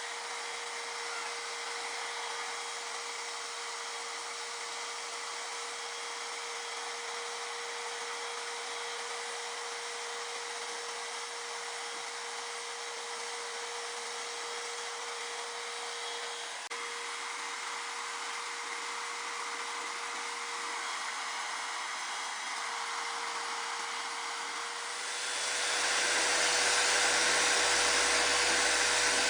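Handheld electric spray gun's motor running steadily, a hair-dryer-like rush of air with a steady hum tone. About 25 s in it gets louder.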